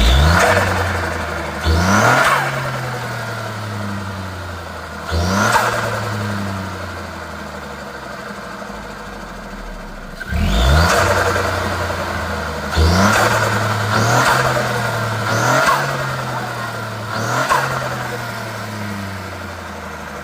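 Ford Fiesta ST Mk8's turbocharged 1.5-litre three-cylinder engine, breathing through an Airtec induction kit, revved in about eight quick throttle blips, each rev rising sharply and then falling back toward idle.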